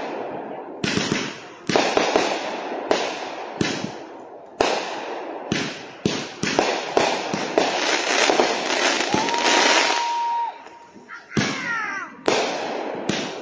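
Consumer-grade aerial fireworks going off in a rapid string of loud bangs, one to two a second, each trailing off as it echoes. About two-thirds through, a whistling tone holds for a second or so, then a few falling whistles follow.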